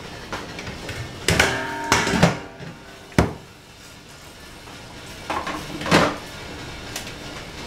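Glass lid and stainless steel steamer pot being handled: several ringing metal clanks and knocks, the loudest group around a second and a half to two seconds in, a single sharp knock a little after three seconds, and more clanks around six seconds in.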